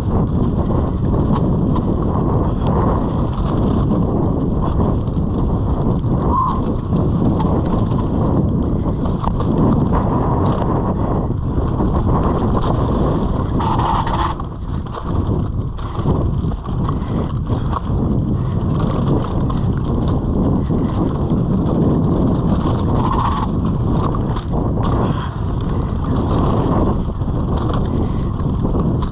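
Wind buffeting the camera microphone on a fast mountain-bike descent, over the steady noise of tyres rolling on loose gravel and stones. Frequent short rattles and knocks from the bike.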